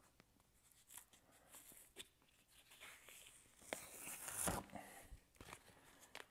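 Used rubber stencil being peeled off a stone: faint scattered rustles and small clicks, with a louder tearing rustle about four seconds in.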